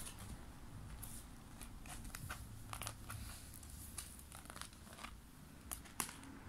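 Faint, irregular light clicks and rustles of a kitten batting a plastic pen across a woven mat, the sharpest tap near the end.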